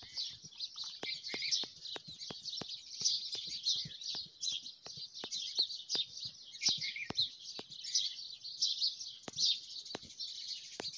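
Small birds chirping steadily in the background, with a string of sharp clicks a few tenths of a second apart.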